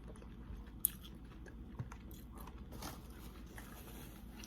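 Close-up mukbang eating sounds: a person chewing and biting seafood-boil food, with a sharp click just under a second in and a smaller one about a second later.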